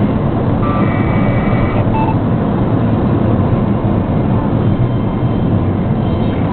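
Honda Fit RS driving, heard from inside the cabin: steady engine and road noise.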